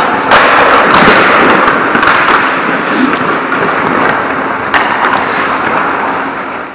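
Ice hockey play right at the net: skate blades scraping and carving the ice, with several sharp clacks and thuds of sticks, puck and goalie pads during a shot on goal, the loudest just after the start.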